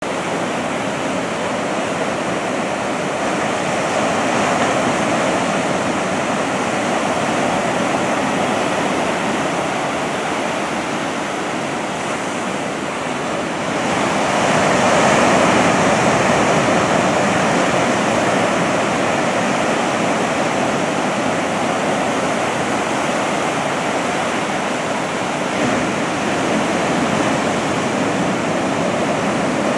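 Ocean surf breaking and washing up a beach: a continuous rush of water that swells louder about four seconds in and again around fourteen seconds as bigger waves come in.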